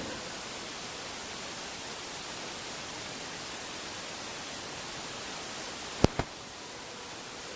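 Steady hiss with no other sound for most of the stretch, then two sharp clicks close together about six seconds in.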